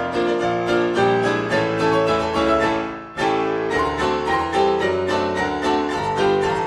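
Keyboard music accompaniment with quickly struck notes, briefly dropping away about three seconds in before picking up again.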